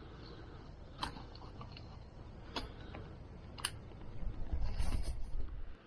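Camera handling noise: a few sharp clicks about one, two and a half and three and a half seconds in, then a low rumble of handling on the microphone near the end, over a faint quiet background.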